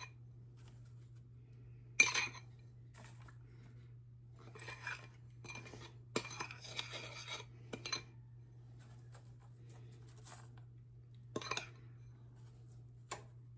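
A spoon clinking and scraping against a mixing bowl in scattered taps, a cluster of them in the middle, as a cocoa-and-sugar mixture is sprinkled over cobbler batter. A faint steady low hum runs underneath.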